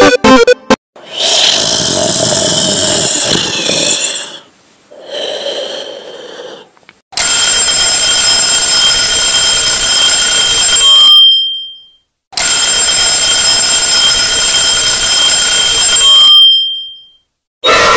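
Soundtrack sound effects for a mime act: after a few seconds of noisy effects, an alarm clock rings loudly in two bursts of about four seconds each, the second ending near the close.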